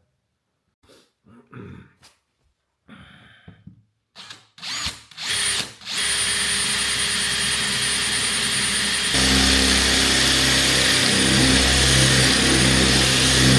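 Power drill boring into the van's metal roof panel, starting about six seconds in after a few handling knocks. About three seconds later it drops into a heavier, lower note as the bit bites. The bit is one the user calls the bluntest.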